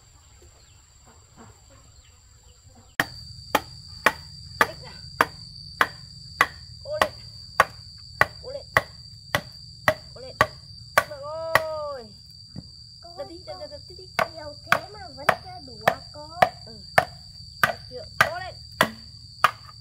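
Repeated blows of a hand tool, nearly two a second, starting abruptly about three seconds in, over a steady high insect drone. A few short pitched calls break in around the middle.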